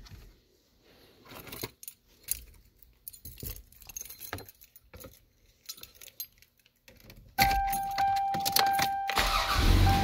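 Keys jangling with light clicks as the ignition key is handled. About seven seconds in, a 1998 Toyota Camry's warning chime starts, a steady tone with brief breaks. A second or so later the engine cranks and starts, and it runs on under the chime, starting normally with the kill switch set to run.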